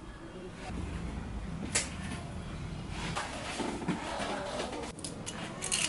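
Scattered sharp clicks and light knocks with some rustling, from hands handling a motorcycle's handlebar controls and gear; the clicks bunch together near the end.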